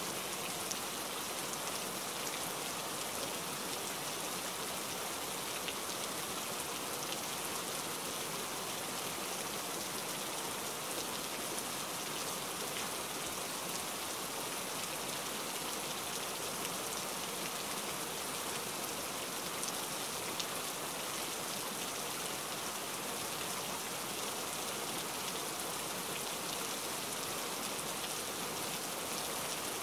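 Steady rain falling, an even hiss with now and then a single drop tick.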